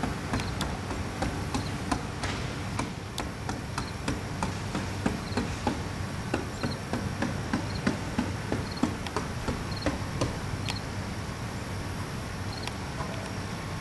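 Outdoor ambience: a steady high insect drone with small chirps about once a second, over a scatter of irregular sharp clicks and knocks.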